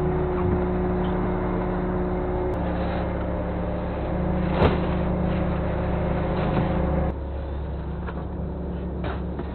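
A fishing boat's engine and deck machinery running with a steady, pitched hum while the set net is hauled in. About seven seconds in, part of the hum cuts out and the sound drops. One sharp knock comes about four and a half seconds in.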